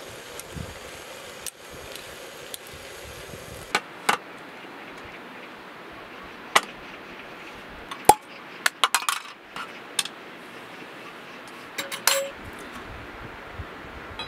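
Dishes, cutlery or small camping gear being handled: scattered sharp clinks and clicks, a quick cluster near the middle and another near the end, over a steady background hiss.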